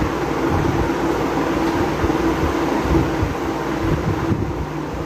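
Steady hum of an electric fan, with an uneven low rumble of moving air on the microphone.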